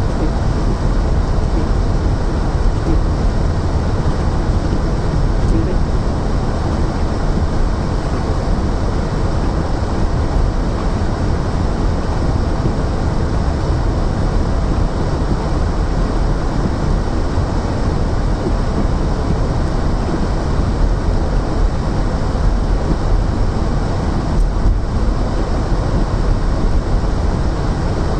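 Steady road noise inside a car's cabin while driving on a snow-covered street: engine and tyres making a low, even rumble.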